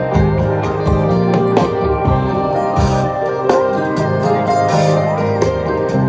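Live concert music from a band on stage, played loud through the festival sound system and picked up from within the crowd.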